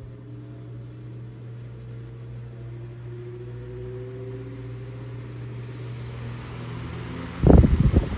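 Antique Robbins & Myers 16-inch gearback table fan running: a steady electric motor hum with faint higher tones that drift slightly in pitch. Near the end a brief, loud low rumble cuts in over it.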